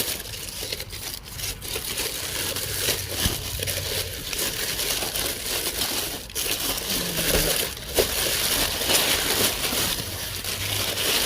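Crumpled recycled packing paper being handled and crushed by hand, a noisy, continuous crinkling and crackling.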